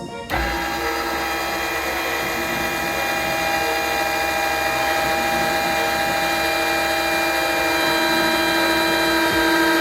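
Electric motor of a line-strength testing rig running steadily, a constant whine with many overtones that slowly grows louder, as it pulls an FG knot joining braid to leader under load.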